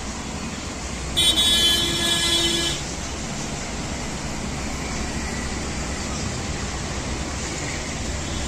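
A vehicle horn sounds once, held for about a second and a half, over a steady rumble of road traffic.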